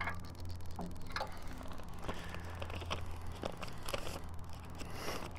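Sparse light clicks from the bed knife adjuster screw on an Allett Stirling 51 cylinder mower as it is turned notch by notch, with paper being handled at the reel, over a steady low hum.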